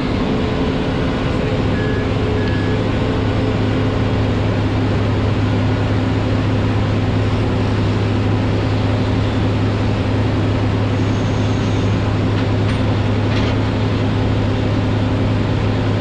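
Diesel engine of a Casagrande B200 XP rotary piling rig running steadily under load while it drills a pile bore, with a strong low hum.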